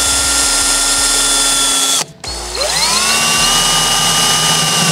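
DeWalt cordless drill running steadily as it bores a 7/32-inch pilot hole through a car's sheet-metal trunk lid. The motor whine cuts off about two seconds in and spins back up a moment later.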